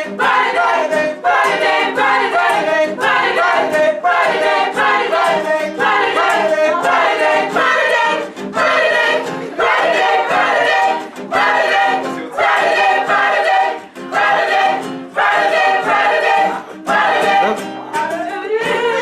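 Gospel choir singing in parts, repeating a short refrain over and over at about one phrase a second.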